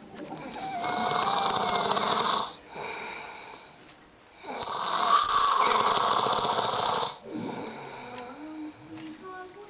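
A sleeping man snoring: two long snores of about two seconds each, a couple of seconds apart, with quieter breathing between them.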